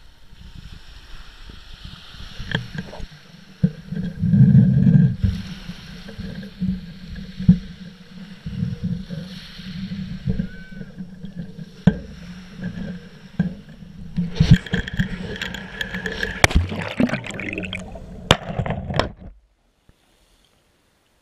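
Rubbing, knocks and clicks of a GoPro in its housing on a fishing line, with wind on the microphone. A louder stretch of rushing and clatter follows as it goes into the sea. About nineteen seconds in, the sound cuts off suddenly to near silence once the camera is underwater.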